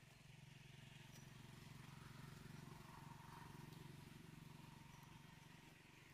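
Faint low engine drone of a distant motor vehicle, swelling to a peak a few seconds in and then fading away.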